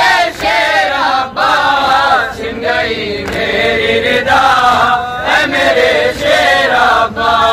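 Several male voices chanting a Shia noha lament together, unaccompanied, in long melodic lines that rise and fall.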